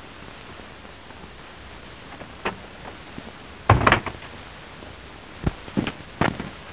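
Wooden door pushed shut with a loud double thud a little past halfway, after a small click; a few light knocks and taps follow near the end, over a steady background hiss.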